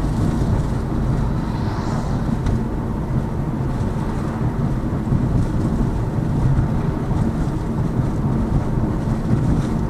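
Steady road and tyre rumble of a Lada Vesta Cross driving slowly over a rough road, heard from inside the cabin, with no distinct knocks: the suspension is running quiet.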